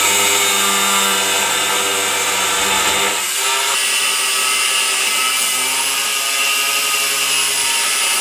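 Angle grinder running and cutting metal, a steady high motor whine that drops in pitch and changes character about three seconds in, cutting off a seized sway-bar end link whose nut would not come off because the worn bushing spins.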